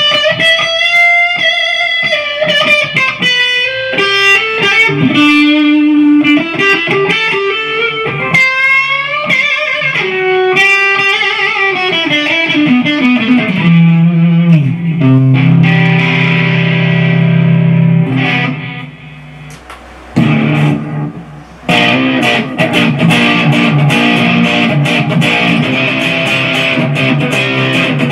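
Modified Kazuki Baby 1 mini electric guitar played through an EVH 50-watt amp head: single-note lead lines with string bends and vibrato, then a held low chord about halfway through, a brief quieter gap, and fast rhythmic chord picking near the end.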